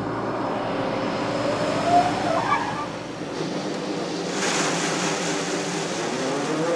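Combine harvester running, heard from inside its cab, as it unloads harvested corn into a truck. A steady engine hum carries throughout, with a short rising whine about two seconds in and a rushing noise that swells a little after three seconds.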